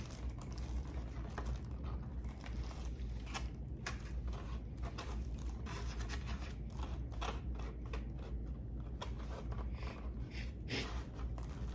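Close-up eating sounds: a person chewing and crunching food, with scattered sharp clicks and crackles throughout.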